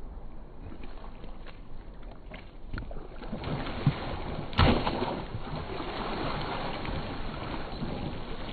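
Water swishing and wind noise as a board glides across the water, getting louder about three seconds in. A sharp thud with a splash about four and a half seconds in as a man lands a backflip back on the board.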